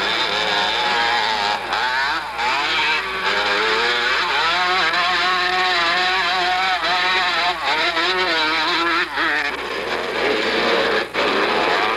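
Motocross bikes' engines revving up and down as riders race around the dirt track, picked up by a Super 8 sound camera's microphone, with a couple of brief dropouts.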